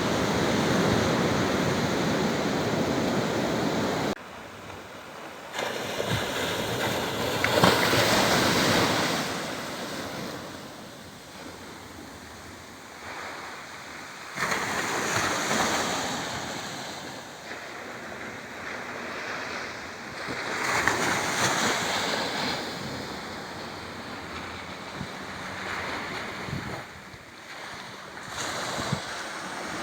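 Sea waves breaking and washing ashore, the surf swelling and fading in surges every several seconds, with wind noise on the microphone.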